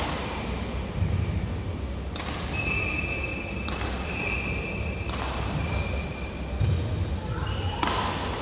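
Badminton rackets striking the shuttlecock in a rally: about five sharp hits roughly a second and a half apart, each echoing in a large hall.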